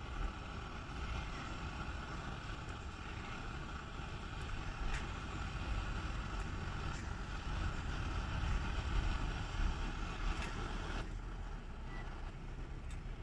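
Steady low rumbling noise with a light hiss, with a few faint clicks about five and ten seconds in.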